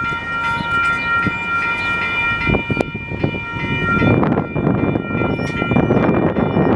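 Electronic railroad crossing bell (e-bell) ringing steadily with a high, multi-tone ring while the crossing gates come down. From about four seconds in, a loud noisy rumble grows beneath it.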